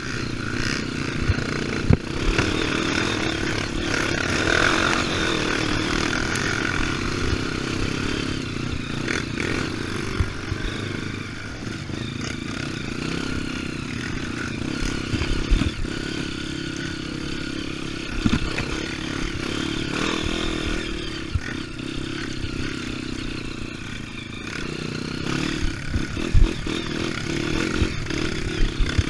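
Dirt bike engine running while riding a trail, its pitch shifting with the throttle, with scattered clattering knocks from the rough ground.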